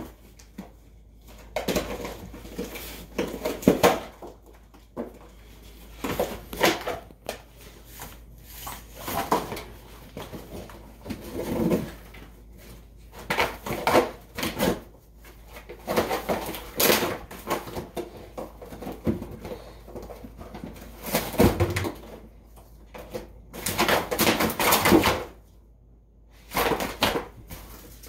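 Gordon Setter tearing and chewing a corrugated cardboard box: ripping and crunching of cardboard in irregular bursts of a second or so, with short pauses between.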